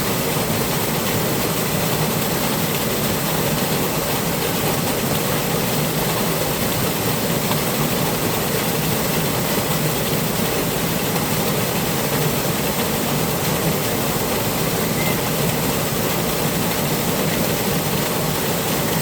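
Flowing water making a steady, unbroken rushing sound.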